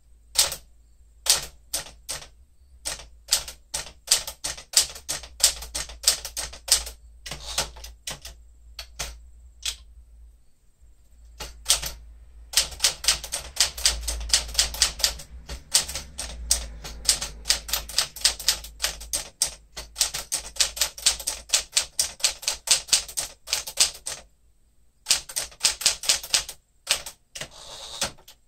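Typing on a 1967 Sears Tower Citation typewriter, built on Smith Corona internals: a long series of sharp type-bar strikes against the platen, uneven and halting at first, then a fast steady run of keystrokes after a short pause about ten seconds in, with another brief pause a few seconds before the end.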